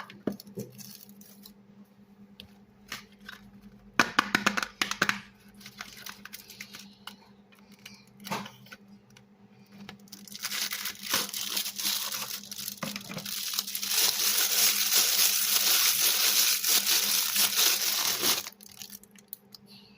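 Soap being cut and crushed: scattered crunchy crackles, then from about halfway through a dense run of crumbling and crackling that stops suddenly near the end.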